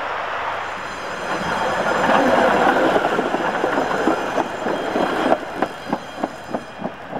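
Electric tram passing close by on the track: the rumble of its wheels on the rails builds to a peak, then turns into a rhythmic clack of wheels over rail joints, about three a second, fading as the tram moves away.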